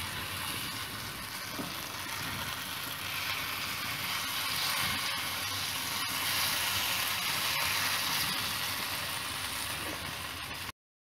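Masala-coated colocasia (taro root) pieces sizzling in hot oil on a flat tawa. The sizzle swells as more pieces are dropped in, then cuts out for a moment near the end.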